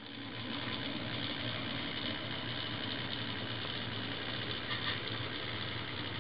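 HO-scale model of a GE 45-ton diesel switcher running along the track, giving a steady diesel-engine drone with a low hum.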